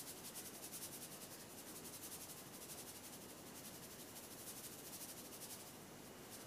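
Faint trickle of a thin stream of liquid poured from a plastic bottle over raw chicken pieces, under a steady hiss with a fast, even flutter.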